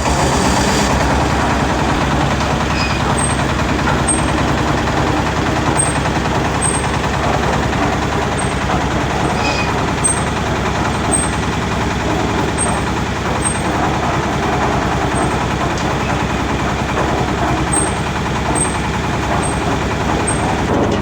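Heavy engine running steadily at a constant speed, with an even machine noise over it.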